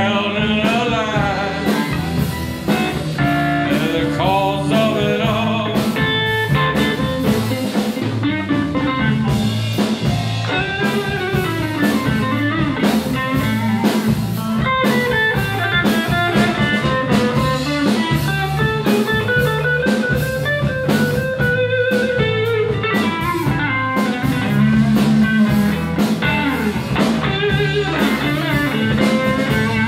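Live blues band playing an instrumental section: a lead electric guitar solo with bent notes over bass guitar and drum kit.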